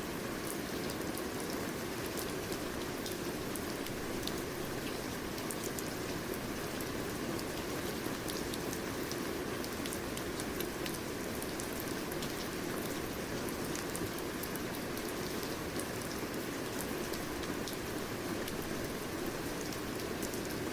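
Steady rain falling on a surface, a dense even hiss with many small drop ticks throughout.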